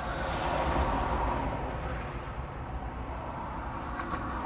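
Road traffic: a passing vehicle whose noise swells to its loudest about a second in and then slowly fades.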